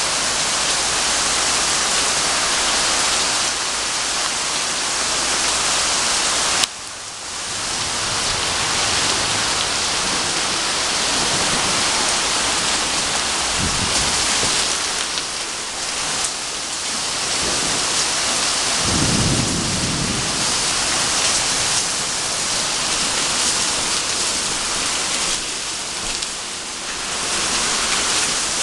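Heavy thunderstorm rain pouring steadily, a dense hiss of rain on the porch roof, yard and trees. A sharp click about a quarter of the way in, and a couple of brief low rumbles past the middle.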